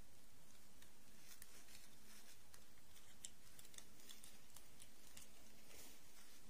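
Faint, light clicks and rustles of small plastic dolls and their dresses being handled, scattered irregularly over a steady low hum.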